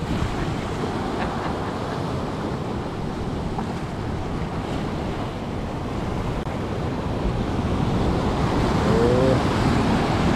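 Sea surf washing and breaking against a rocky shore, a steady wash of water that grows a little louder over the last few seconds, with wind buffeting the microphone.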